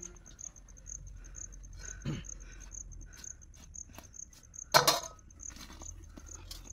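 An insect chirping in a steady high pulse about twice a second, over scattered handling and tearing noises from a raw chicken being cut apart with a knife over a steel plate. A sharp knock about five seconds in is the loudest sound.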